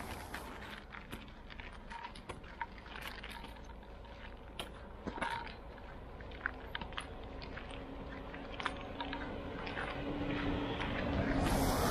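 Footsteps crunching on an icy, gritty sidewalk in an irregular series of short crunches. Near the end a car comes closer, its engine and tyre noise growing louder.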